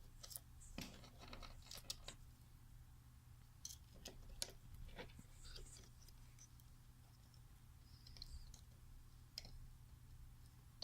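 Faint, scattered small clicks and handling noises over a low steady hum.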